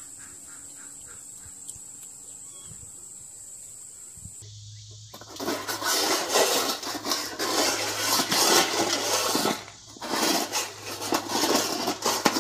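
Dry kibble rattling and scraping in a steel food bowl as a dog paws at it. The sound is loud and comes in two long stretches, starting about four seconds in, with a brief pause in between.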